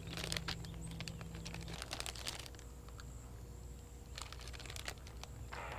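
Soft crinkling and crackling as a piece of bread is handled and eaten, in scattered irregular crackles.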